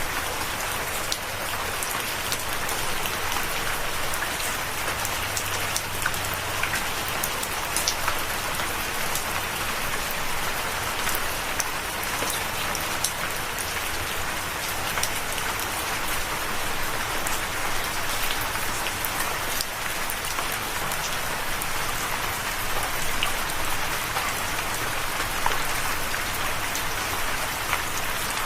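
Steady rain falling, an even hiss dotted with many small distinct drop impacts.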